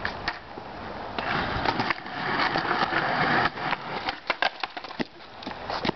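Skateboard wheels rolling on a concrete sidewalk, a steady rolling rumble that swells in the middle, with a run of sharp clicks and clacks near the end.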